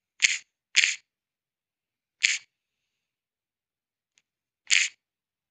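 Four short, sharp clicks, spaced irregularly, from keys being tapped one by one on a phone's on-screen keyboard while a code is typed.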